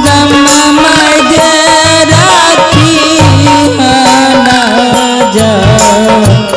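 Indian folk-style background music: a wavering, ornamented melody over a steady drum beat.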